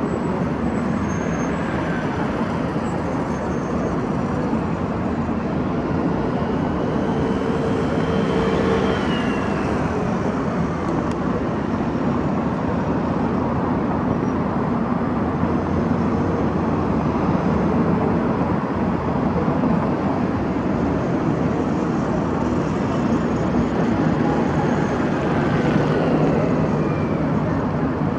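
City road traffic: a steady wash of car engines and tyres on the road, swelling as vehicles drive past about eight seconds in and again near the end.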